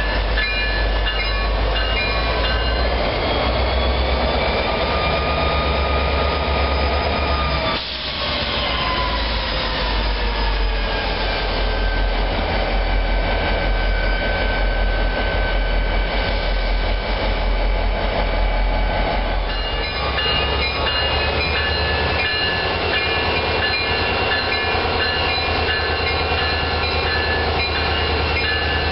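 Diesel locomotives of a New Jersey Transit ballast train running with a steady low engine rumble. Several high-pitched squealing tones sit on top, and they slide down in pitch about eight to eleven seconds in.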